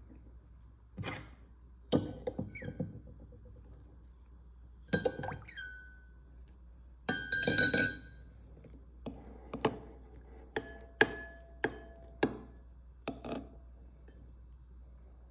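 A utensil clinking against a glass bowl during slime mixing. A few clusters of knocks and clinks are followed by a run of about eight separate clinks, some leaving a brief ringing tone.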